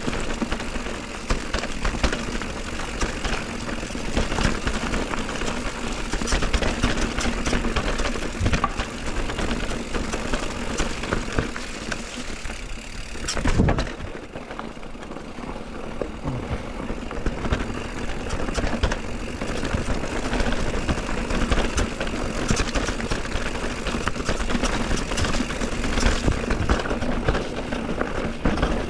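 Mountain bike riding over a rough, rocky trail: a steady rumble of tyres and wind on the microphone, with frequent clatter and knocks from the bike. There is a louder jolt about halfway through, then it runs a little quieter for a few seconds.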